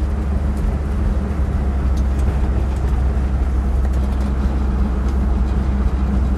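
Engine and road noise heard from inside the cabin of a moving 1959 Edsel Corsair convertible with a 361 V8: a steady low rumble with no change in pitch.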